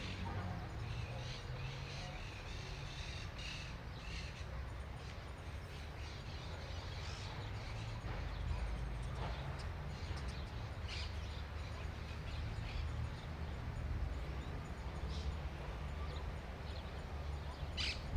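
Birds calling now and then in short, scattered calls over a steady low rumble.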